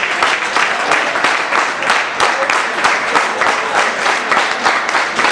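An audience applauding: many hands clapping, dense and steady.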